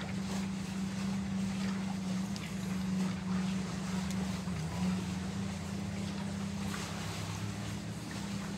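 A steady low motor hum holding one pitch, with a slight wobble about halfway through and faint scattered ticks over it.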